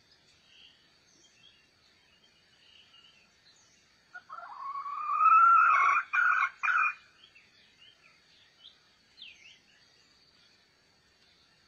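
A rooster crows once: a loud call of about three seconds that rises, holds, and breaks up near its end. Faint bird chirps and a steady high insect drone sound in the background.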